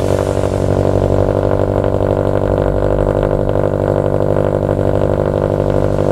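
2014 Scion FR-S's 2.0-litre flat-four boxer engine idling steadily through a Tomei unequal-length header, catless front pipe and Invidia N1 cat-back exhaust.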